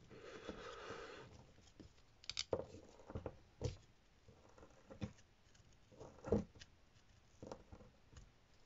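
Brass wool being packed down into a brass pipe fitting with a screwdriver pressed in by hand: faint scraping with a handful of light, irregular knocks and clicks of metal on metal.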